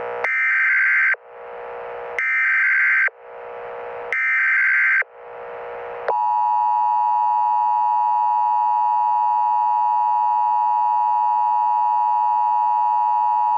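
Emergency Alert System tones: three one-second bursts of the shrill, warbling SAME header data, a second apart, then about six seconds in, the steady two-tone EAS attention signal sounding on one held chord. Together they announce an incoming emergency alert.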